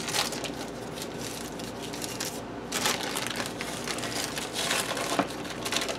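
Clear plastic wrap crinkling irregularly as a log of compound butter is unrolled from it by hand.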